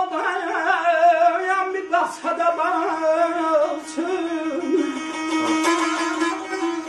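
Azerbaijani ashiq saz playing a melody in the segah mode over a steady ringing drone string, with quick, sharp plucked strokes near the end.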